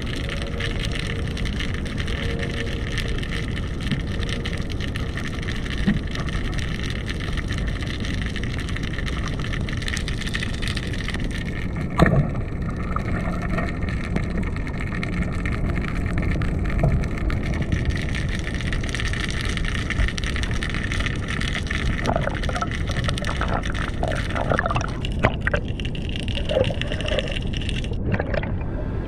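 Underwater noise picked up by a camera in its housing while freediving: a steady low rumble and hiss, with a single sharp click about twelve seconds in and bubbling sounds in the last few seconds.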